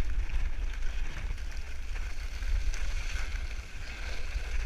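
Wind buffeting a camera's microphone: an unsteady low rumble with a rushing hiss.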